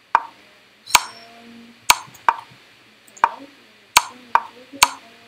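Chess.com's wooden piece-move sound effect: about eight short, sharp knocks at uneven intervals as moves are played through on the analysis board.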